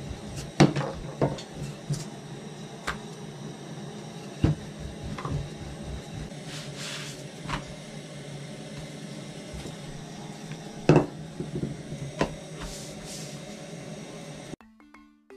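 Scattered knocks and taps of hands and utensils handling chapati: a wooden rolling pin on a table, then flatbread laid and pressed on a flat iron pan over a gas burner. The taps sit over a steady background noise. Music with plucked, marimba-like notes comes in near the end.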